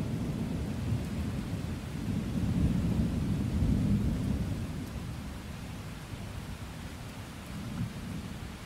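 Rolling thunder over steady rain: a low rumble that swells again about three seconds in, then fades away, leaving the even hiss of rainfall.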